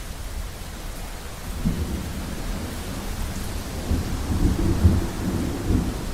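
Thunderstorm: steady rain hiss with rolling thunder, the rumble building from about a second and a half in and loudest near the end.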